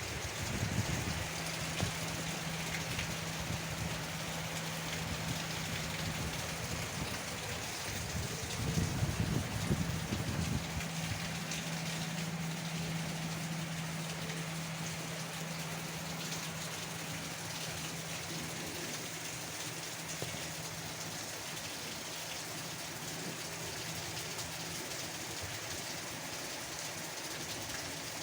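Heavy rain falling steadily, a continuous even hiss. Under it runs a steady low hum that stops about three-quarters of the way through, with a louder low rumble around a third of the way in.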